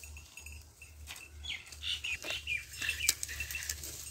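Small birds chirping: a run of short, quick calls, thickest from about a second and a half in to near the end, over a low steady rumble.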